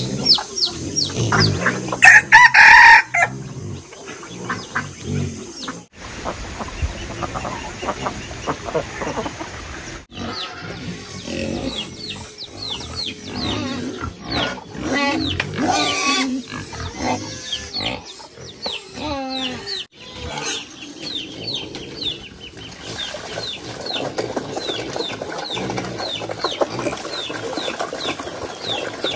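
A rooster crows loudly about two seconds in, among clucking chickens. Later come grunting and squealing calls from the pigs in their pen, with high, short chirps repeating throughout.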